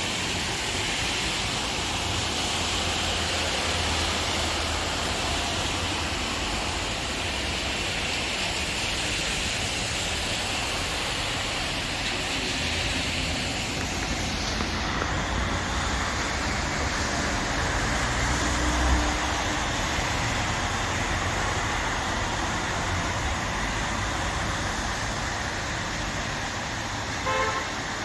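Rain and wind making a steady rushing hiss over a low rumble, the hiss dulling slightly about halfway through. A brief pitched tone sounds near the end.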